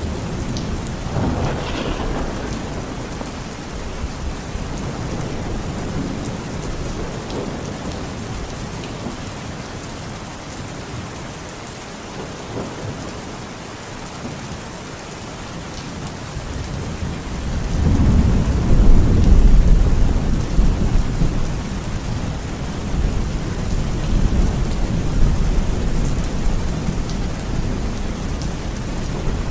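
Steady heavy rain falling, with thunder: a brief low rumble near the start, then a long, loud rolling rumble that builds about two-thirds of the way through and slowly dies away.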